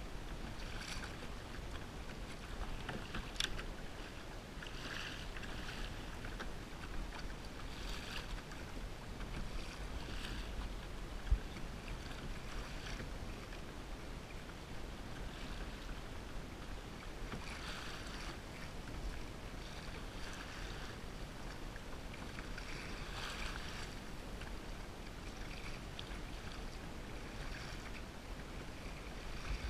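Water washing and lapping against a Hobie Outback pedal kayak's plastic hull as it moves through light chop, in soft irregular splashes every second or two, over a steady low wind rumble on the microphone. A sharp click comes about three seconds in, and a short thump about eleven seconds in.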